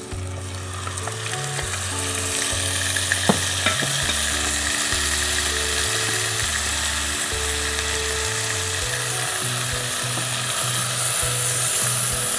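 Yogurt-marinated goat meat sizzling in hot oil and ghee with fried onion, the sizzle growing louder over the first couple of seconds as the meat goes into the pot, then frying steadily while being stirred. A single click comes about three seconds in. Low background-music notes play underneath.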